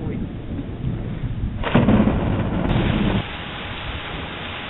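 Thunder rumbling after a nearby lightning strike, swelling into a louder peal about two seconds in that dies away after about a second and a half. A steady hiss of rain comes in partway through and continues.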